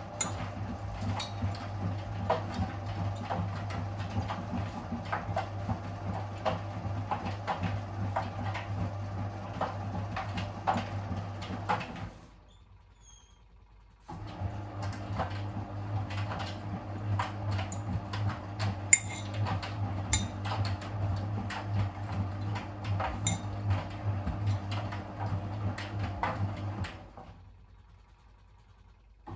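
Miele WS 5405 front-loading washing machine in its wash phase: the drum motor hums as the drum tumbles the load, with frequent clicks and clinks of the wet laundry and trainers knocking in the drum. The drum turns for about twelve seconds, pauses for two, then turns again for about thirteen seconds before stopping, the stop-and-start rhythm of a front-loader's wash action.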